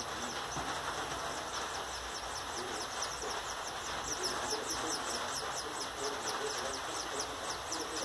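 Songbird nestlings begging in the nest cup: thin, high chirps in a fast run of about five a second, growing clearer after a couple of seconds, over a steady hiss.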